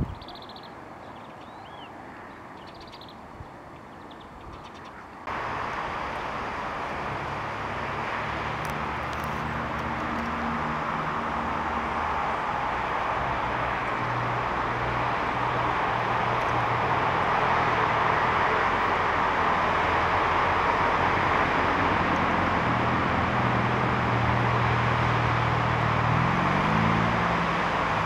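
A few faint small-bird chirps over quiet outdoor ambience. About five seconds in, this gives way to a louder, steady rush of road traffic that slowly swells. Under the rush runs the low hum of an engine, which climbs in pitch near the end.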